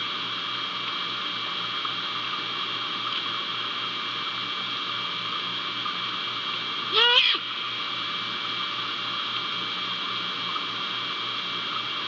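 A single short, wavering owl call about seven seconds in, rising in pitch and then quavering, over a steady hum.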